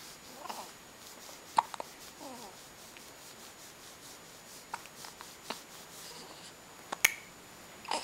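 Hiccups: a series of short, sharp hiccup clicks at irregular intervals, the loudest about seven seconds in.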